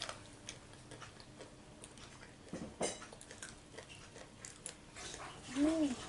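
Quiet eating sounds: faint chewing of crispy battered boneless chicken feet with scattered small clicks and taps, one sharper tap about three seconds in, and a brief hum that rises and falls in pitch near the end.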